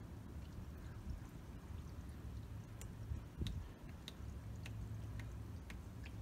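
Dirty engine oil draining from a Chevrolet Camaro's oil pan into a bucket: a faint, steady pour with a few small ticks.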